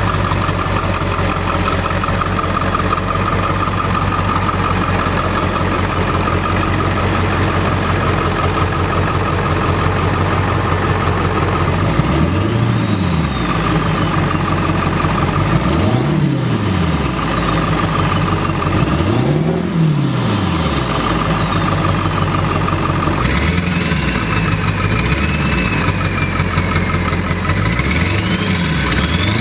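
Truck engine running steadily, then revved up and back down several times from about twelve seconds in, each rev rising and falling in pitch over a second or so.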